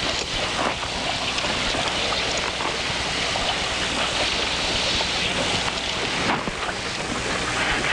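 Steady wind and water noise on an open fishing boat, with wind buffeting the microphone.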